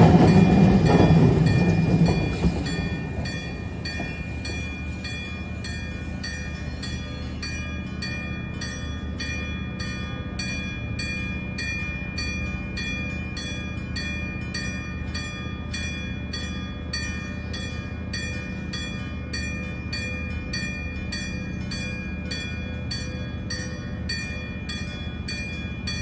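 Level-crossing warning bell, a real mechanical bell rather than an electronic sounder, struck about twice a second and ringing on between strikes. Under it runs a low rumble that is loud at first and dies down over the first two seconds or so.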